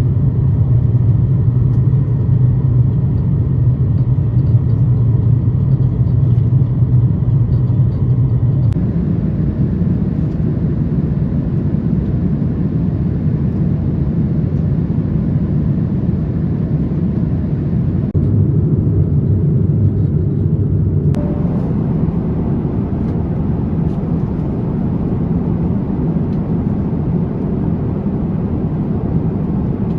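Jet airliner cabin noise: a loud, steady low rumble from the engines and airflow, heard from inside the cabin. Its tone shifts abruptly about nine seconds in and again about twenty-one seconds in.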